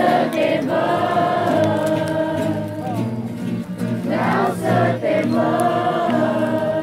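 A group of voices singing a Christian worship song in Romanian, with acoustic guitars accompanying; the melody has long held notes.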